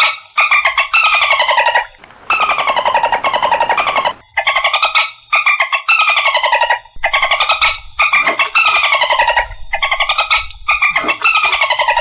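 Bottlenose dolphin giving a string of rapid pulsed squawks, about ten bursts with short gaps, each burst falling in pitch.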